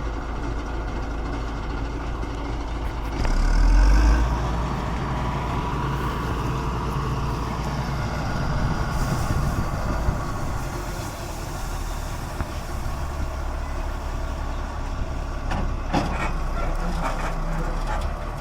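Combine harvester's diesel engine running steadily, briefly louder about three or four seconds in, with a few short knocks near the end.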